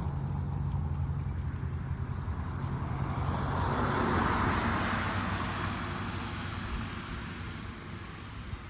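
A vehicle passing by: a rushing rumble that swells to a peak about four seconds in and then fades away.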